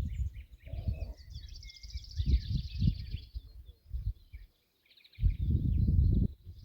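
Small birds singing, with rapid trills and chirps, over irregular gusts of wind buffeting the microphone as a low rumble; the strongest gust comes about five seconds in.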